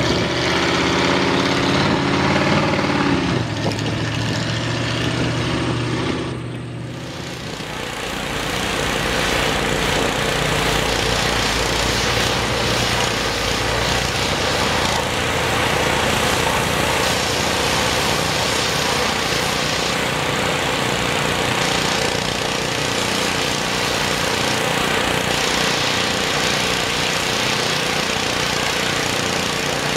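The Ford mud truck's V8 with open headers runs and revs for the first few seconds. It then gives way to a gas pressure washer's small engine running steadily, with the hiss of its water spray.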